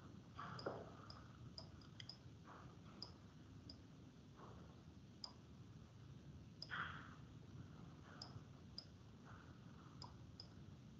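Near silence with faint, irregular small clicks, about one or two a second, from drawing lines on a computer screen.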